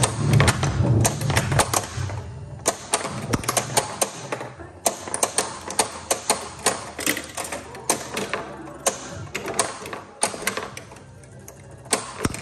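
Addams Family Gold pinball machine in play: a steady stream of sharp clicks and knocks from the ball, flippers and solenoids, over the game's music and sound effects.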